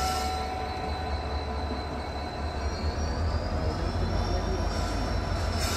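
Passenger train rolling slowly through a station yard: a steady low rumble, with a thin high tone that slides up in pitch about halfway through.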